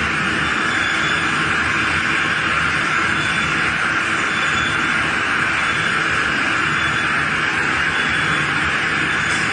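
Spiral boiling machine for meatballs running, its perforated spiral auger turning through the cooking tank. It makes a steady, even machine noise with no rhythm or change in level.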